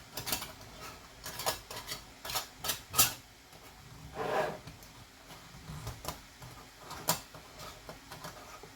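Metal canning-jar lids and screw bands clicking and scraping against glass jars as they are handled and fitted. There is a string of small clicks, a louder click about three seconds in and again near seven seconds, and a brief rubbing scrape around four seconds.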